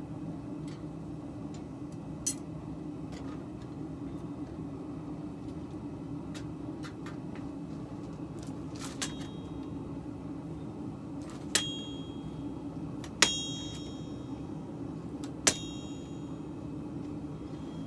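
Three sharp metal-on-metal strikes that ring out, a hammer on the steel blade and anvil, spaced a second or two apart in the second half, with a few lighter clicks earlier, over a steady low hum.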